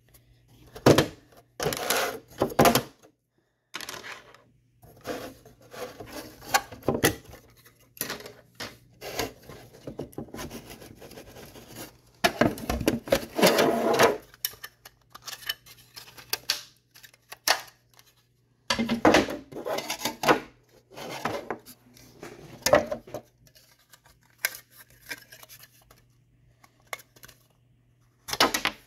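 Wooden fingerboard ramp pieces handled on a tabletop: irregular knocks, taps and scraping as they are picked up, slid and set down, with longer runs of clatter in the first few seconds, in the middle and about two-thirds through. A faint low steady hum sits underneath.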